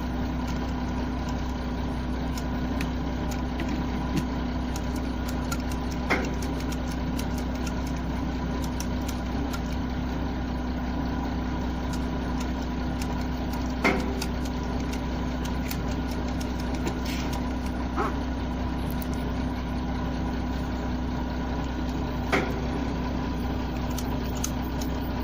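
Hitachi ZX210 excavator's diesel engine idling steadily, with a few sharp knocks at irregular intervals.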